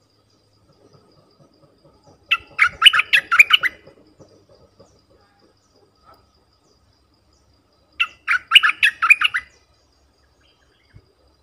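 A caged merbah lekir bulbul singing a lure song: two short phrases of quick, jumping notes, one about two seconds in and another about eight seconds in.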